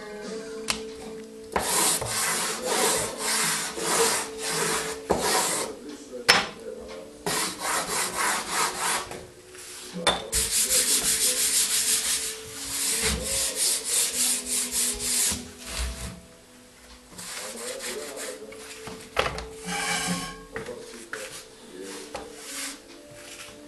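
Hands rubbing dry pastel into paper on a wooden drawing board: runs of quick, rhythmic rubbing strokes, about two to three a second, broken by short pauses.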